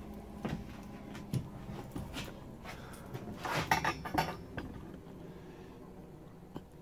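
Handling noise: scattered light clicks and knocks as the camera is picked up and carried, with a cluster of clatters about halfway through and a single click near the end, over a faint steady hum.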